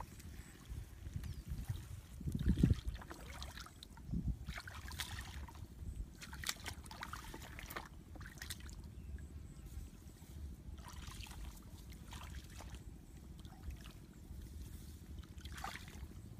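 Shallow muddy paddy water splashing and sloshing in scattered short bursts as people wade and grope through it by hand, over a low steady rumble, with a low thump about two and a half seconds in.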